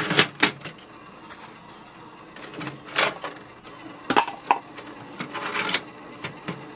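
The plastic input paper tray of an HP OfficeJet Pro 8020 printer being pulled open and its paper guides slid, giving a series of sharp plastic clicks and knocks with some scraping.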